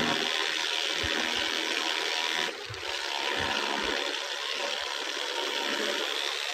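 Steady rush of wind and road noise from riding at speed, with a few low thumps of wind buffeting the microphone and no clear engine note.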